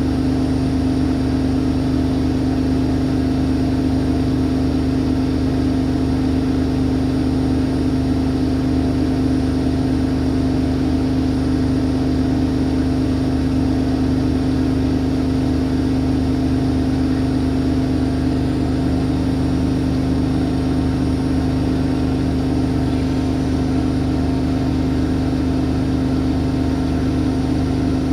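Siemens Siwamat iQ 716 washing machine running with a steady hum that holds the same pitch and level throughout.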